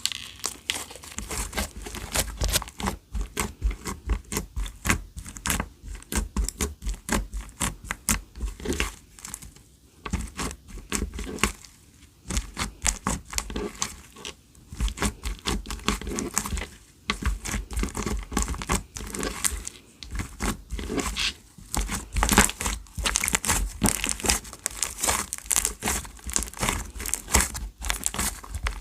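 Clear slime being handled: squeezed, stretched and pressed by hand, making a dense, irregular run of small sticky pops and crackles.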